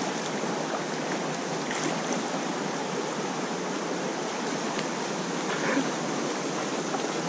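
Whitewater river rushing steadily around a packraft: the even hiss of a small rapid.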